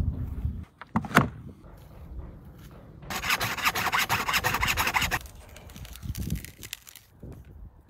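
Hacksaw cutting through the rib bone of a beef tomahawk steak, with rapid back-and-forth strokes for about two seconds. A single sharp knock comes about a second in.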